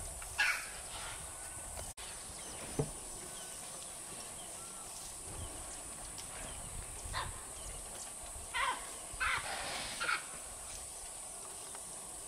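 Quiet outdoor ambience with a steady high hiss and a few faint, short animal calls: one near the start and three in quick succession about two-thirds through.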